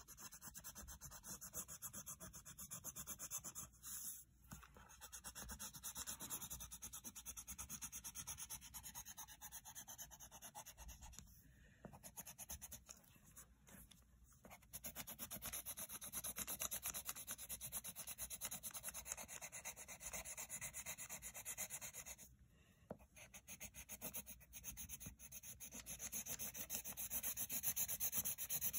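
Colored pencil shading on paper, rapid back-and-forth scratchy strokes, with short pauses now and then.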